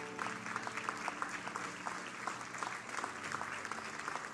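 Congregation applauding with scattered, irregular hand claps, over faint held musical notes.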